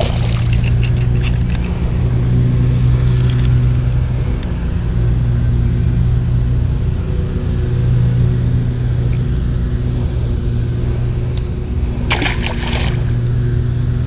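A steady, loud low mechanical hum, like a running motor, with a short rustling burst about twelve seconds in.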